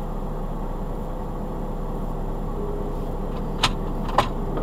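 Stationary truck's engine idling, a steady low drone heard inside the cab. Two sharp clicks come near the end, about half a second apart.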